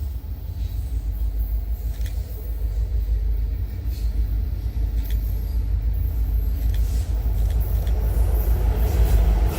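Train rumbling past, a deep steady rumble with a few faint clicks, growing louder toward the end.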